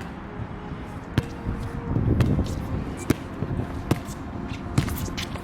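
Basketball bouncing on an outdoor court: about five sharp bounces at uneven intervals as the ball is dribbled in play, with a brief low rumble about two seconds in.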